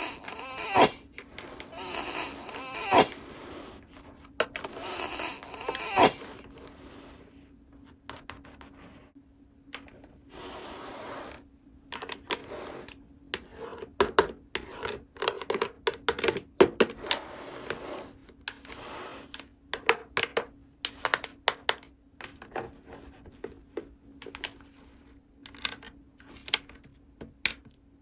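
Small plastic toy pieces being handled and set down: irregular light clicks and taps with stretches of rustling, over a faint steady hum.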